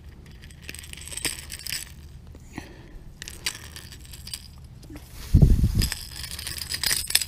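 Metal pliers clicking and scraping against the treble hooks and hard plastic body of a topwater popper as the hooks are worked out of a pickerel's mouth, with a dull thump about five and a half seconds in.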